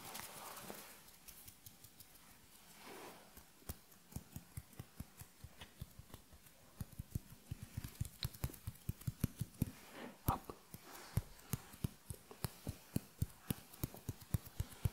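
ASMR hand sounds: fingers fluttering, tapping and rubbing right against a microphone. They make quick, soft, irregular clicks that come sparsely at first and grow denser and louder from about seven seconds in.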